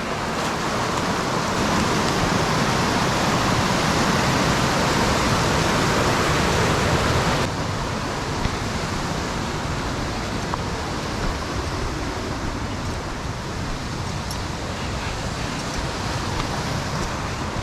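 Creek in high flow rushing steadily, a continuous roar of water that drops suddenly to a somewhat lower level about seven seconds in.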